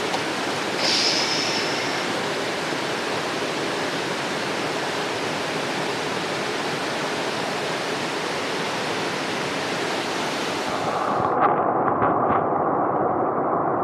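Mountain stream water rushing over rocks, a steady hiss. About eleven seconds in the sound turns muffled and dull, with a few knocks, as the microphone goes under the water.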